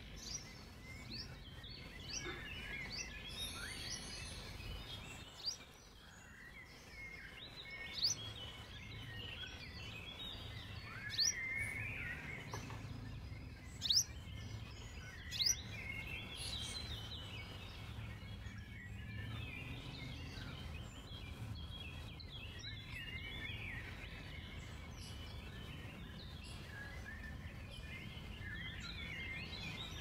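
Several small songbirds chirping and twittering, with a few louder sharp chirps standing out, over a steady low background rumble.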